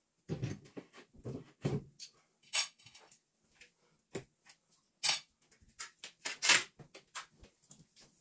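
Claw hammer working a nail out of a drywall wall and a wall sign being lifted off: a string of short knocks and scrapes, the loudest about two-thirds of the way through.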